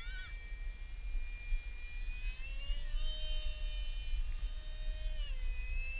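Electric motor and propeller of a ParkZone Stryker RC flying wing whining steadily overhead. Its pitch rises about two seconds in and falls again about five seconds in, over a low wind rumble on the microphone.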